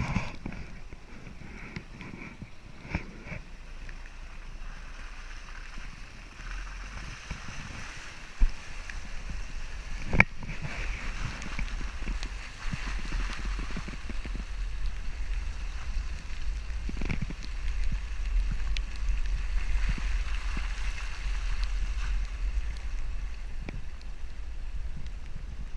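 Volkswagen Amarok pickup driving off-road through tall dry grass and brush. A low engine rumble runs under grass and brush swishing and scraping along the body, with a few sharp knocks from the truck jolting over rough ground.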